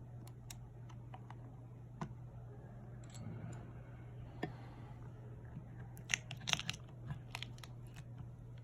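Small clicks, taps and light scraping of repair tools on an opened iPhone's internals, with a denser run of sharp clicks about six seconds in, over a steady low hum.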